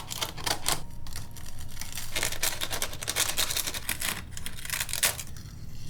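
Papery wasp nest envelope being torn and peeled apart by hand, a dense run of dry crackling and crinkling.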